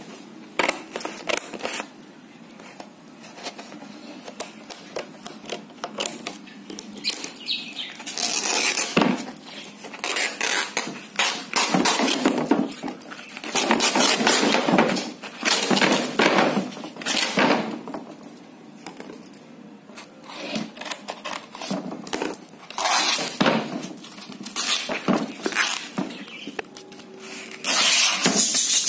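Painted canvas being cut and ripped off a wooden stretcher frame: a run of rough tearing and scraping strokes, with small clicks and knocks between them.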